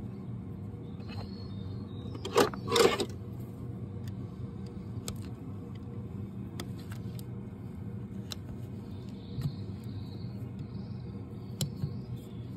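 Hoof-trimming tools cutting into a Shire horse's hoof horn: two loud cuts close together about two and a half seconds in, then scattered small clicks and snips, over a steady low background hum.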